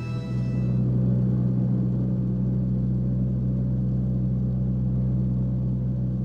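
Steady low rumble of aircraft engines running, a constant drone that does not rise or fall.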